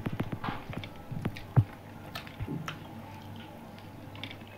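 Eating sounds: chewing and wet mouth smacks, with fingers mixing rice and curry on steel plates. A quick run of small clicks and smacks comes in the first two seconds, with one sharper click about a second and a half in, then softer scattered ones.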